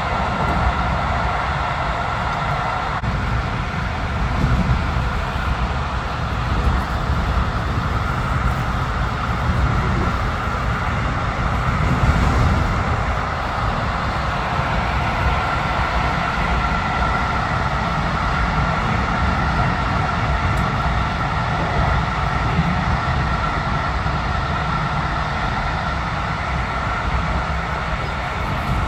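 Passenger train running at steady speed: a continuous low rumble of wheels on the track, with a steady hum above it.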